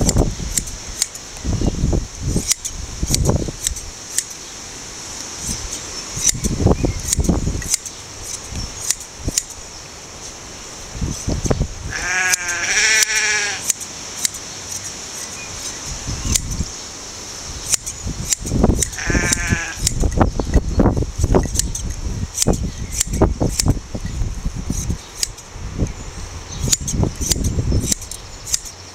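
Hand blade shears snipping through a Shetland sheep's fleece in a run of sharp clicks, with low thumps of handling. A sheep bleats twice, a long wavering call near the middle and a shorter one about two-thirds through.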